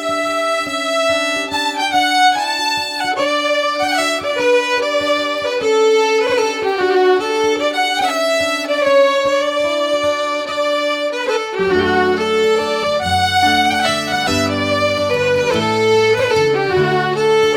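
Background music: a fiddle melody over a held low note, with lower bass notes coming in about two-thirds of the way through.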